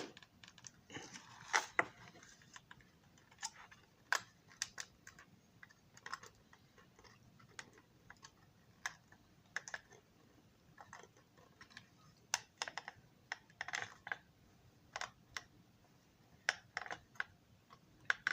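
Irregular small clicks and taps of a plastic model railroad car body and parts being handled and pressed together by hand.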